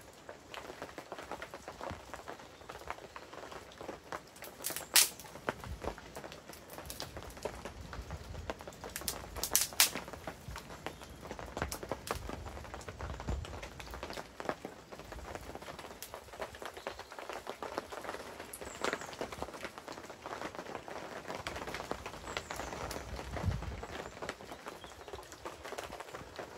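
A small wood fire being lit and fed with kindling: scattered crackles and clicks, with two loud sharp snaps about five and ten seconds in and a dull knock near the end.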